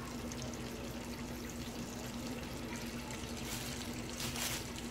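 Catfish pieces sizzling steadily in a deep fryer of hot oil, over a steady low hum, with a brief rustle of the plastic-lined bowl of cornmeal near the end.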